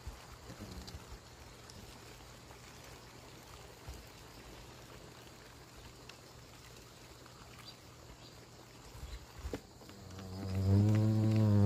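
Faint, steady buzzing of hornets around their nest. About ten seconds in, background music comes in on a deep droning note and becomes the loudest sound.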